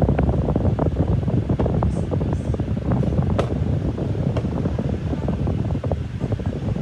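Steady low rumbling air noise, like a fan blowing, with scattered small clicks and taps as fingers press and handle an ASUS X543UA laptop keyboard.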